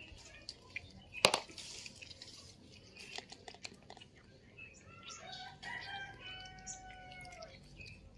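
Cats eating from a shared tray, with small clicking chewing sounds and one sharp knock about a second in. From about five seconds in there is a long drawn-out animal call of a few seconds, broken a few times and falling at its end.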